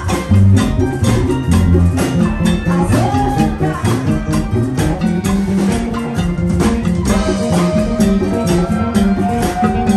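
Live Latin band music: electric bass, keyboard and hand percussion playing a steady dance beat, with the bass notes strongest in the first two seconds. In the second half a held melody note slides up and down in pitch over the beat.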